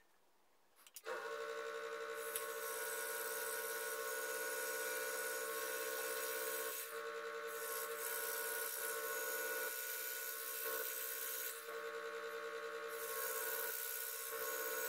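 A click, then about a second in an electric scroll saw starts and runs steadily, its fine blade cutting small notches into the rim of a thin wooden tractor wheel. The high cutting hiss drops away briefly twice.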